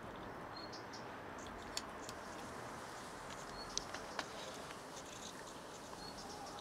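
Cats chewing dry kibble: a scatter of small crisp crunches and clicks over a steady hiss, with a few sharper clicks about two and four seconds in. A faint short high chirp comes about every two and a half seconds.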